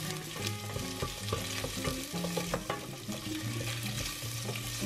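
Chopped onion frying in hot olive oil in a stainless steel pot, a steady sizzle with light clicks of a wooden spoon stirring against the pot.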